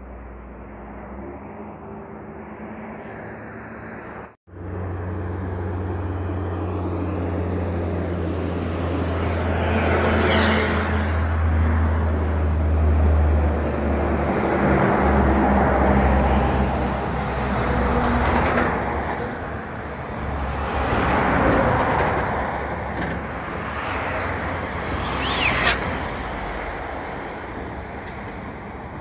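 Heavy trucks passing on the road: deep diesel engine drone and tyre noise swelling and fading, loudest in the first half. Two short, sharp hissing bursts stand out, about ten and about twenty-six seconds in.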